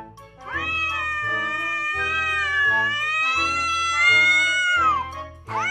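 A cat's long, drawn-out warning yowl at another cat, lasting about four and a half seconds with a slightly wavering pitch that drops as it ends, followed by a short rising cry near the end. Background music with a steady beat plays underneath.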